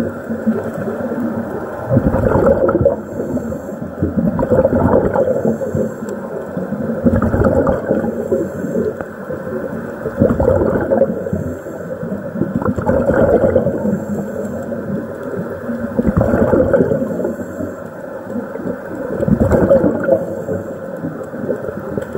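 Muffled underwater gurgling that swells into a burst about every two to three seconds, typical of a scuba diver's exhaled regulator bubbles heard underwater.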